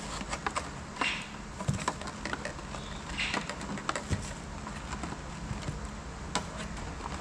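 Plastic bag and plastic container rustling and crinkling as small fruits are handled and packed, with scattered light clicks and knocks, over a steady low hum.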